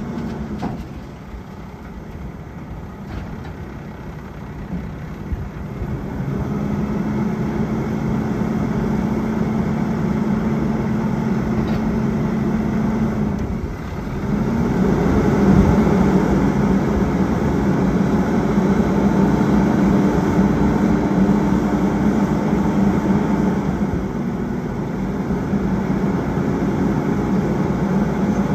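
2018 Peterbilt 567 dump truck's diesel engine running steadily. Its note steps up about six seconds in, dips briefly midway, then runs louder.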